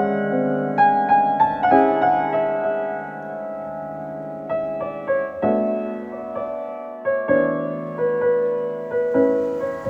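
Background piano music: a slow, gentle melody of single notes and chords, each struck and left to ring.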